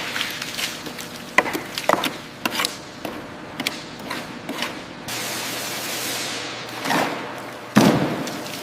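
A string of sharp knocks and clanks, a steady hiss lasting about two seconds past the middle, and a heavy thud near the end, the loudest sound.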